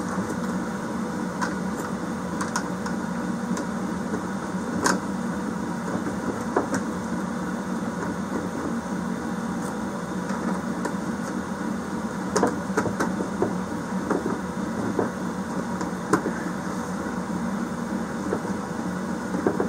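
Scattered clicks and knocks of parts being handled and fitted during heater assembly, over a steady low hum.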